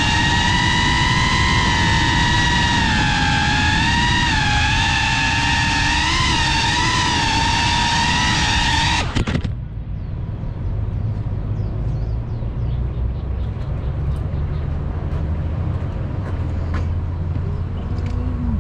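Small FPV drone's motors and propellers whining, a steady high-pitched tone that wavers slightly with throttle. The whine cuts off abruptly about nine seconds in as the drone lands and disarms. After that a low, steady rumble remains, with a few faint ticks.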